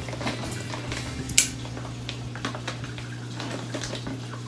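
Plastic bag of fine black aquarium sand being handled and pulled open: faint rustles and ticks, with one sharp crackle about a second and a half in, over a steady low hum.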